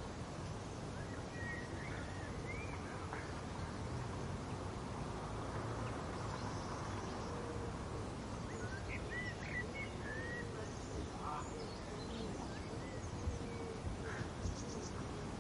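Summer garden ambience: scattered bird calls and chirps over steady background noise, with a couple of short sharp knocks near the end.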